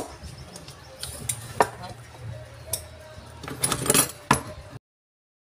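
Scattered metal clinks and knocks of hand tools and parts on an electric demolition hammer being taken apart for a field-coil change, over a faint steady hum; the sound cuts off abruptly near the end.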